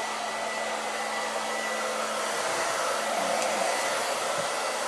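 Hair dryer blowing steadily, drying a freshly bathed dog's wet coat; a steady rushing hiss with a faint whine.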